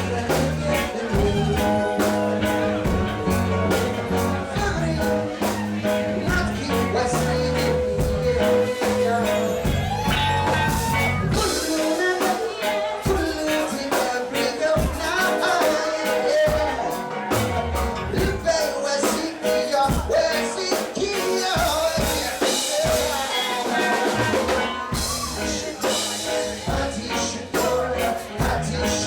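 Live reggae band playing, with drums and a heavy bass line; about ten seconds in the deep bass drops away, leaving the drums and higher instruments to carry on.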